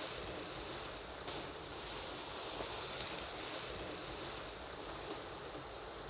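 Steady outdoor background hiss, even and unbroken, with one faint click a little over a second in.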